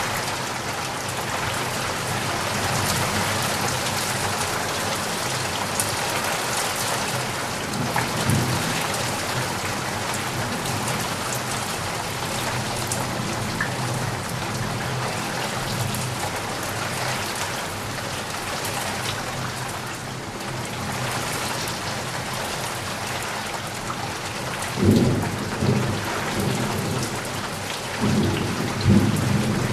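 Heavy rain falling steadily, with a roll of thunder about eight seconds in and two louder thunder rumbles near the end.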